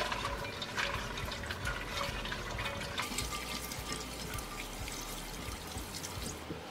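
A silicone spatula stirring frozen blueberries through water and a sugar-cornstarch mix in an enamelled pot: wet sloshing and swishing with many small clicks as the berries knock about.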